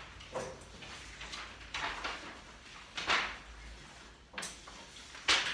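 A handful of short rustling, sliding swishes of paper being handled, about one a second, as sheets are shifted or pages turned.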